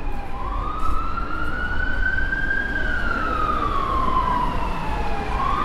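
Emergency vehicle siren wailing in a slow rise and fall: the pitch climbs for about two and a half seconds, falls for about the same time, and starts to climb again near the end.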